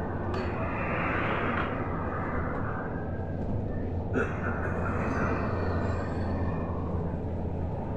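Inside a Volgabus-5270.E0 electric bus on the move: steady tyre and road noise with a low, even hum, and a single brief knock about four seconds in.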